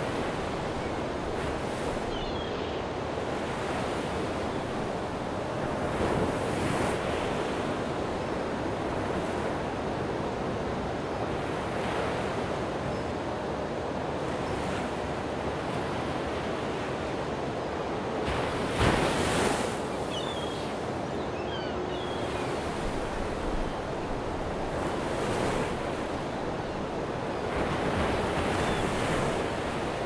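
Ocean surf: a continuous rush of waves washing on a shore, swelling every few seconds as waves break, the loudest break a little past halfway.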